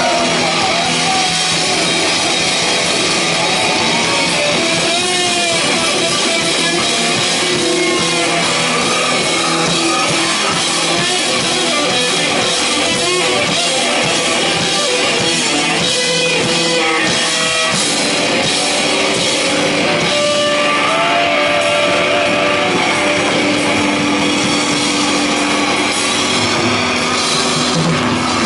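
Live rock band playing loud: electric guitars over a drum kit, with a few bent or sliding guitar notes.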